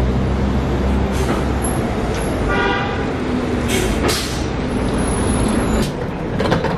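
City transit bus idling and pulling in at a stop with a steady low engine rumble. A brief pitched tone sounds about two and a half seconds in, and a sharp hiss of air comes about four seconds in, followed by a few clicks near the end.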